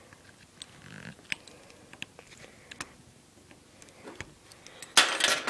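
A bunch of keys clicking and scraping in small sharp ticks, used as a makeshift pry tool on a ceiling fan's plastic remote mounting, then a loud rattle near the end.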